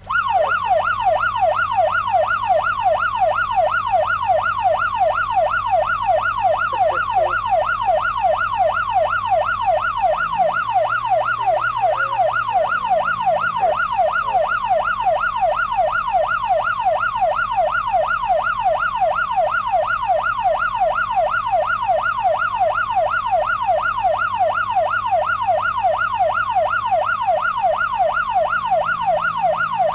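Police car siren in its fast yelp: a tone sweeping up and down about twice a second without a break, over a low steady hum.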